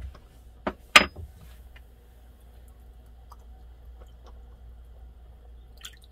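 A few sharp knocks about a second in, the loudest one very loud, then a metal spoon stirring soup in a saucepan with faint clicks and scrapes against the pan. A steady low hum runs underneath.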